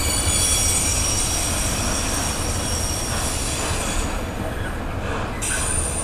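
Container freight wagons rolling past on the track with a steady rumble and a high-pitched wheel squeal. The squeal fades about four seconds in and returns sharply near the end.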